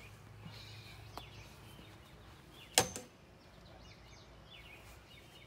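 Quiet outdoor ambience with faint bird chirps, broken by a single sharp knock or click a little under three seconds in, followed by a smaller one.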